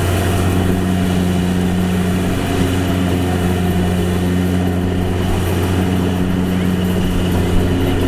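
Kubota rice combine harvester's diesel engine running at a steady pitch as the machine cuts and threshes through the paddy.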